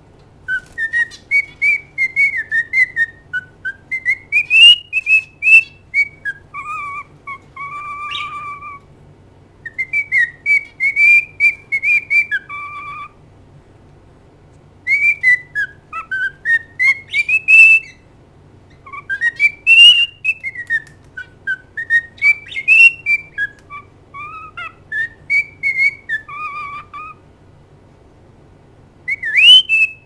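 Pet cockatiel singing a whistled song: phrases of quick up-and-down whistled notes, some held low, broken by short pauses of a second or two.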